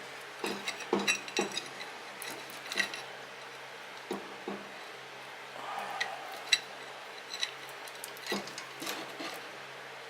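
Steel drive chain clinking and rattling against the rebuilt differential of a John Deere 826 snow thrower as the chain is hooked up to it, in irregular light knocks with a short scrape about six seconds in.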